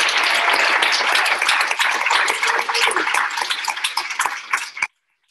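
Audience applauding, dense at first and thinning into separate claps after about two seconds, then cut off suddenly near the end.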